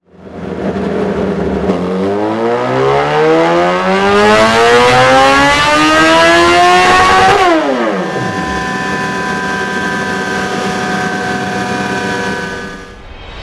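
Suzuki GSX-S 1000 inline-four through a Dominator aftermarket exhaust, revs climbing in one long, even rise for about five seconds. The throttle is then shut and the revs fall away quickly, followed by a steady running sound.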